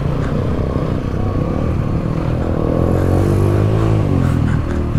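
Yamaha WR155R dirt bike's single-cylinder four-stroke engine running under way. Its revs climb a little after two seconds, then ease off again about four seconds in.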